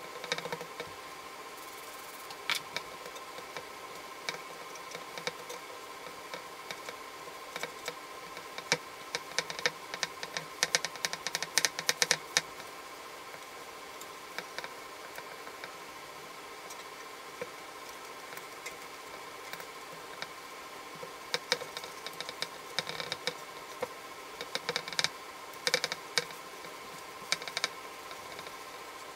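Irregular light clicks and taps of wooden chair parts, the spindles and bow of a hardwood Windsor chair, knocking and shifting as they are handled and wiped down with a rag after glue-up, coming in two busy runs over a steady faint hum.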